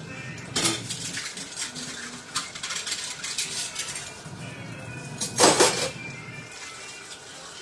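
Dishes, pans and cutlery clinking and knocking as they are handled, with one louder clatter about five and a half seconds in.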